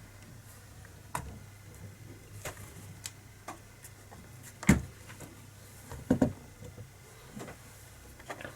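Scattered clicks and knocks of air rifle parts being handled and set down during reassembly, with one sharp knock about halfway through and a quick double knock a second and a half later.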